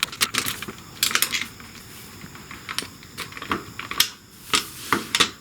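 Ratchet wrench clicking in short, irregular bursts while a bolt on the motorcycle's shift pedal is tightened.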